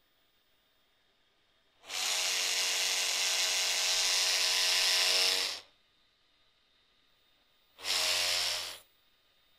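InfinityM brushless gimbal's motors buzzing loudly as the camera mount shakes in a high-frequency oscillation. There are two bursts: about four seconds of it starting two seconds in, then a shorter one near the end. This is the severe vibration the gimbal falls into when the camera is pitched down to around 45 degrees.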